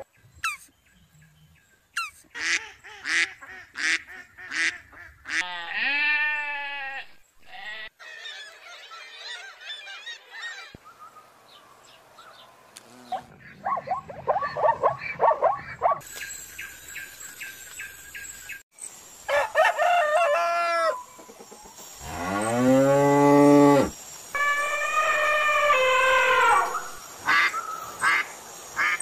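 A string of different animal calls cut one after another, pitched cries and honks with short gaps between them and a few short clicks near the start; the loudest is one long call a little past two-thirds through.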